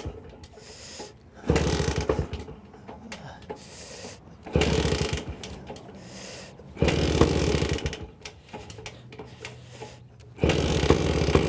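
1952 Hoffmann MR175's 175cc two-stroke engine being kick-started: four kicks, each turning the engine over in a clattering burst of about a second, with pauses between, on choke and not yet catching.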